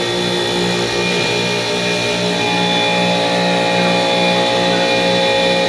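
Supermarket refrigeration compressor rack running: a loud, steady machine hum with a regular pulsing throb.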